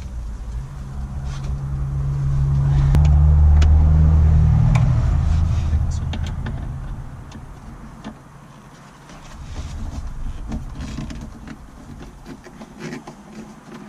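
A vehicle engine hum that swells over a few seconds and fades away, then rises a little again, with light clicks and taps scattered throughout.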